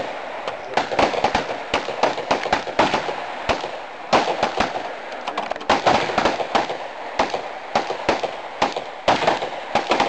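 Handguns, pistols and revolvers, firing fast shots that overlap one another without a pause, several shooters at once.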